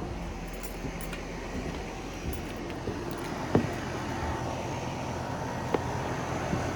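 Lennox Merit central air-conditioner outdoor unit running, its LG scroll compressor and condenser fan giving a steady, even hum with a faint whine. A few short sharp clicks come on top, the loudest about three and a half seconds in.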